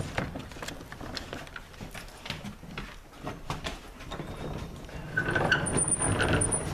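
Irregular footsteps, scuffs and knocks of people and dogs moving about, over a low rumble, with brief vocal sounds about five seconds in.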